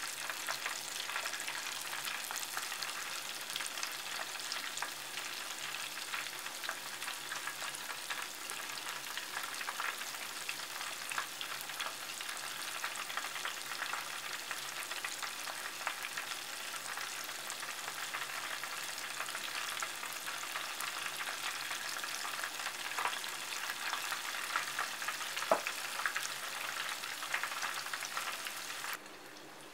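Maitake mushroom tempura deep-frying in vegetable oil: a steady, dense sizzle of fine crackles as the battered pieces cook. It stops abruptly near the end.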